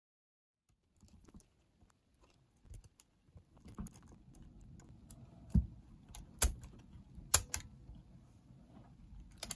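Small screwdriver and metal-part clicks and taps on a cassette player's steel mechanism chassis as a keeper plate is screwed back in place. Scattered sharp ticks over faint handling rustle, the loudest few about halfway through.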